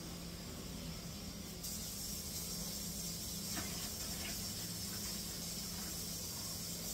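Water running and being poured from a stainless steel bowl into a plastic fermenting bucket, topping up a beer-kit wort with water. A steady hiss of water starts about a second and a half in, with a faint knock of the bowl around the middle, over a low steady hum.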